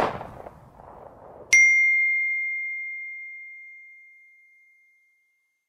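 A short noisy burst fading away, then, about a second and a half in, a single bright ding that rings on one clear tone and slowly dies away over about three seconds.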